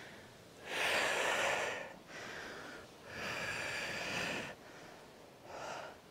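A woman breathing hard from exertion during a kneeling hip-thrust exercise: two long, noisy breaths of about a second and a half each, then a shorter, softer one near the end.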